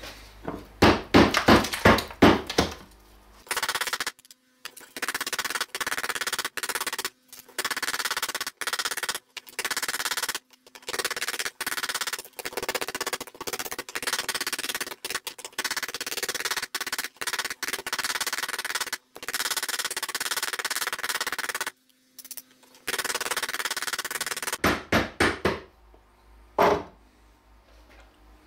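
Hammer striking a heavily rusted steel fork clamped in a bench vise, knocking off the crust of rust. It opens with a quick run of sharp blows, goes into a long stretch of rapid, dense hammering broken by short gaps, and ends with a few separate blows near the end.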